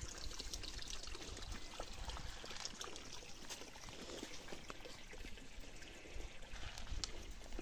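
Faint, steady trickle of water running into a livestock water trough.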